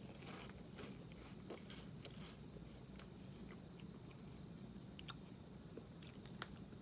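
Faint chewing of crunchy puffed corn cheese snacks: a few soft, scattered crunches over a low steady hum.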